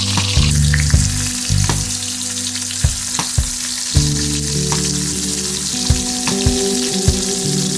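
Food sizzling as it fries in hot oil in a pan, with sharp clicks now and then from a utensil stirring or turning it. Soft background music with held chords plays underneath.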